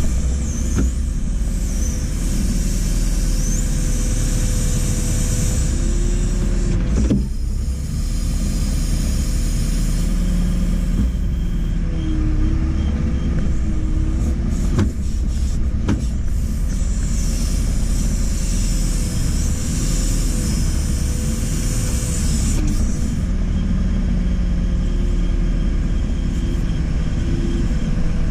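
JCB 4CX backhoe loader's diesel engine running under load, with a high-pitched hydraulic whine that comes in for a few seconds twice, as the engine pitch shifts with the work. A few sharp knocks from the machine's metal parts land about a third of the way in and again past halfway.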